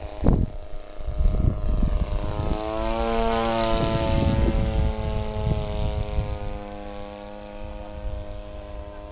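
A radio-controlled model airplane's 26cc engine, converted to run on nitro fuel, drones steadily as the plane flies past overhead. It is loudest about three to four seconds in and then drops a little in pitch as it moves away. Wind buffets the microphone throughout.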